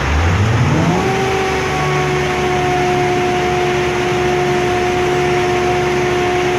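Truck-mounted crane's diesel engine revving up over about a second, then holding a steady high whine while it drives the crane's hydraulics.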